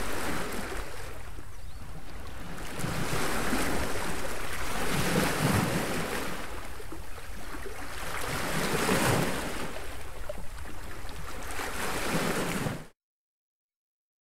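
Ocean waves washing in and drawing back, swelling about every two seconds, then cutting off suddenly into silence near the end.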